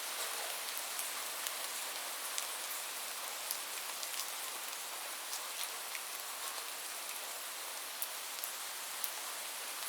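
Steady rain falling, an even hiss with scattered sharp drop ticks on a hard surface.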